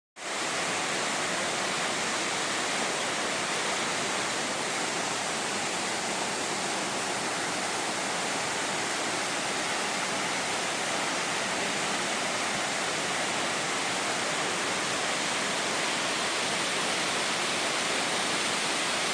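Yoro Falls, a tall waterfall, making a steady, even rush of falling water that does not change.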